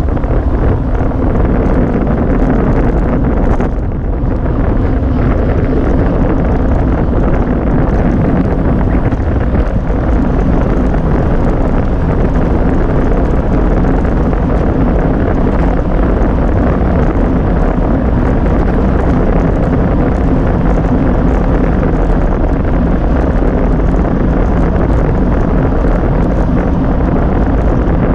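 Steady wind rush buffeting a bicycle-mounted action camera's microphone while riding at race speed.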